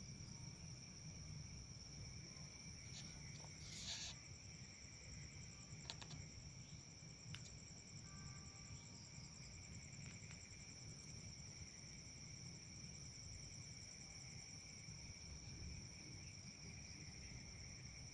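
Faint, steady chorus of crickets trilling at several high pitches over a low rumble, with a few brief clicks and knocks in the first half.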